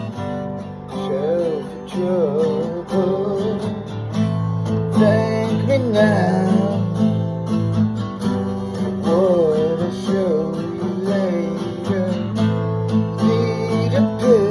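Music: a strummed acoustic guitar with a wavering melody line above it, without words.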